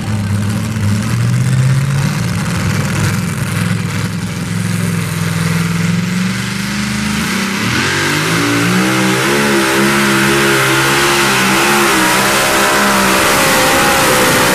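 Supercharged engine of a 2WD pulling truck with a Dodge Dakota body, running steadily while hooked to the sled. About eight seconds in it revs up as the truck starts its pull, the pitch climbing and wavering under load.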